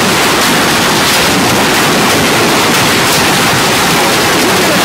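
Heavy hail and rain falling hard: a loud, dense, steady noise of countless impacts with no let-up.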